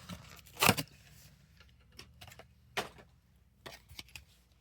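Plastic blister packaging being handled and pried open, irregular sharp clicks and crackles with louder snaps about a second in and near the three-second mark.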